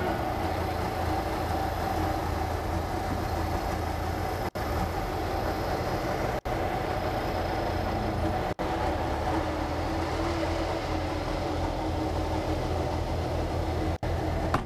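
A vehicle engine running steadily, a low even rumble with a faint steady hum on top; the sound cuts out for an instant four times.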